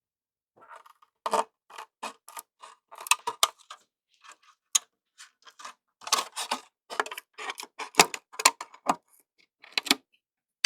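Curved scissors snipping through a clear polycarbonate RC car body shell: a quick, irregular run of short, crisp cuts that starts about half a second in.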